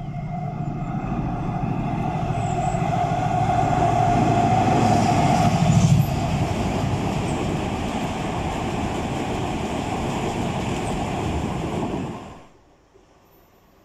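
A freight train hauled by a Class 70 diesel locomotive passes with its tank wagons, a loud steady rumble of wheels on rail with a steady tone running through it. It swells to its loudest about five to six seconds in, then cuts off abruptly about twelve seconds in.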